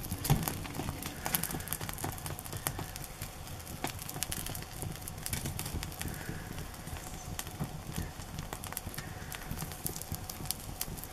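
Wood fire crackling, with irregular sharp pops and clicks over a low steady rumble.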